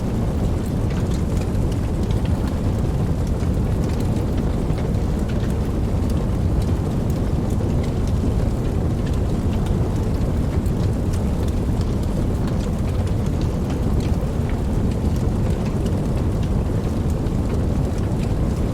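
Steady rain: a dense, even rush of rainfall, strongest in the low range, with scattered individual drop ticks on top.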